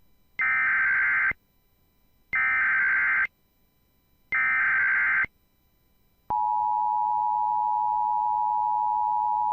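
Emergency Alert System activation for a Child Abduction Emergency (AMBER Alert): three one-second bursts of SAME header data, a second apart, then about six seconds in the steady two-tone EAS attention signal (853 and 960 Hz) begins.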